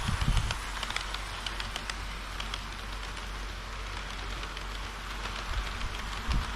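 HO-scale model train running on the layout track: a steady rolling hiss with many small, irregular clicks.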